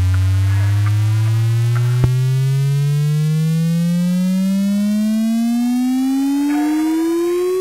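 A loud, steady electronic tone rising slowly and smoothly in pitch the whole time, like a siren winding up, with a single sharp click about two seconds in.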